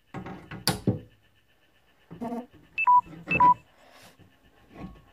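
Two quick electronic beeps about half a second apart near the middle, each a short high note dropping to a lower one, like an electronic device's button tones, amid brief knocks and handling noise.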